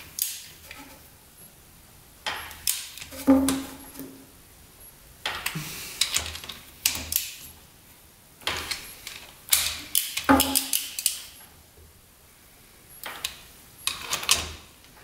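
Socket wrench ratchet clicking in several short bursts, with quiet gaps between, as the cylinder head bolts are turned loose.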